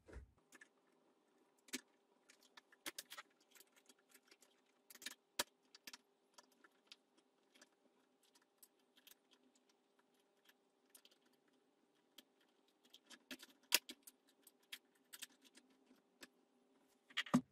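Scattered faint clicks, taps and rustles of a plastic tower fan being handled and lifted out of its cardboard box, with a couple of sharper knocks, over a faint steady hum.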